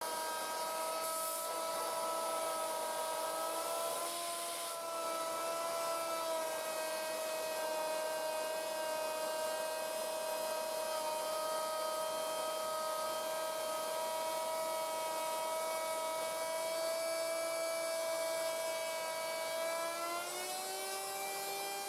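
Homemade belt grinder running without load: a steady motor whine made of several even tones. Its pitch rises near the end as it speeds up.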